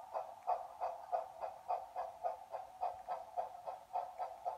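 Chuffing of an HO scale Chesapeake and Ohio 2705 steam locomotive model under way: an even rhythm of about four chuffs a second.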